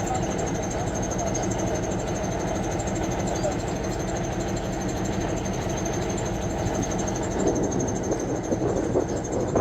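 An engine or motor running steadily.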